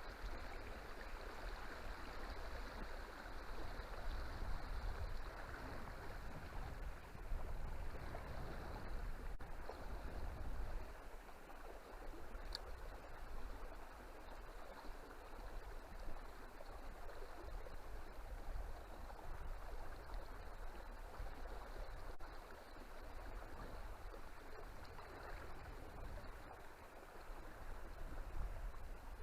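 Water of a large river flowing, a steady rushing sound, with a low rumble underneath that eases about a third of the way in and comes back near the end.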